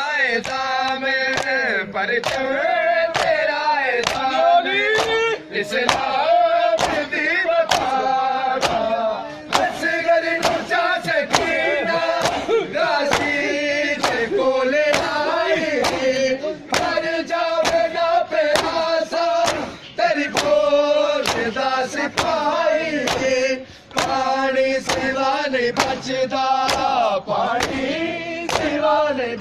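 Male voices chanting a noha, a Shia mourning lament, over a steady beat of hands slapping bare chests in unison (matam).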